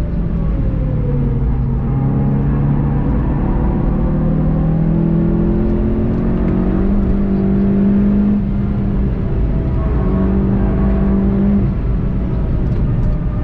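VW Golf 7.5 GTI TCR's turbocharged 2.0-litre four-cylinder engine pulling hard at track speed, heard from inside the cabin, its pitch climbing slowly as the car gains speed. It dips briefly about nine seconds in, then falls away near the end as the driver lifts off.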